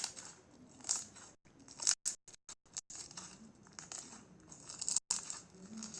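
Crunchy slime with foam beads being pressed and squeezed, giving faint, irregular crackling and crinkling, heard as played back from a video and cut by several brief dropouts.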